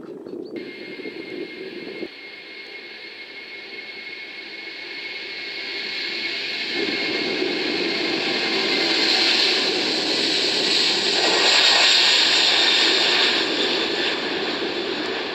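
Boeing 747-400's four jet engines running loudly as the airliner rolls along the runway, a rushing roar with a steady high whine. It starts abruptly, grows louder toward the middle and eases slightly near the end.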